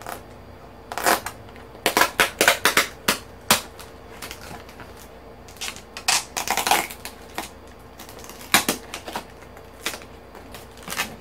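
Long taped cardboard box being handled and worked at: sharp crackles and taps in irregular clusters, the busiest run about two to three and a half seconds in.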